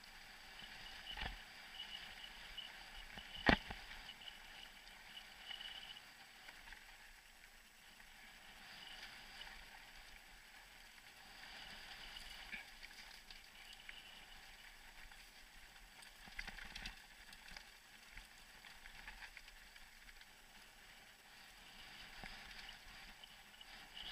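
Mountain bike rolling along a dirt trail: a steady rattle and hiss from the drivetrain and tyres, broken by a few sharp knocks from bumps, the loudest about three and a half seconds in.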